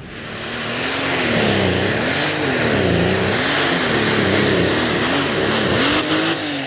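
John Deere pulling tractor's engine at full throttle under load as it hauls the sled, its pitch swinging up and down again and again. A short clatter about six seconds in, as a rear wheel tears off.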